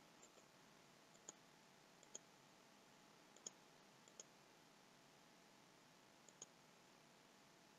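Faint computer mouse-button clicks, about five, each a quick press-and-release pair, spaced irregularly a second or two apart: selecting subtools in a 3D program.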